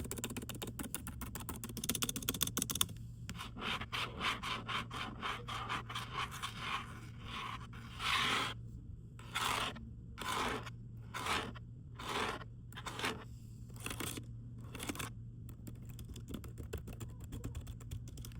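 Scratching and rubbing strokes across a computer keyboard for ASMR. It opens with a quick run of key clicks, then the strokes slow to separate long scratches about one a second, and quicker fine clicking returns near the end.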